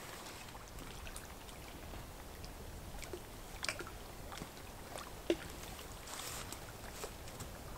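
Faint lakeshore ambience: low, steady water and wind noise with scattered small clicks and rustles of a person moving over rock and brush, two sharper ticks in the middle.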